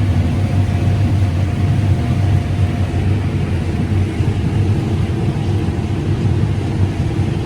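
Combine harvester running steadily while harvesting corn: a loud, even engine and machinery drone with a deep hum, and a faint steady whine in the first few seconds.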